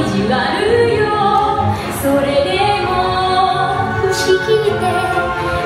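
Music with a woman singing.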